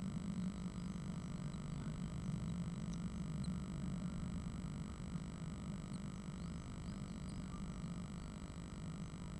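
Steady low electrical hum with hiss, the self-noise of a nest-box camera's audio, with a few faint tiny high ticks.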